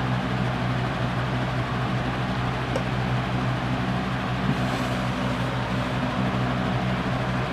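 Steady low hum under an even hiss of background room noise, with no distinct events.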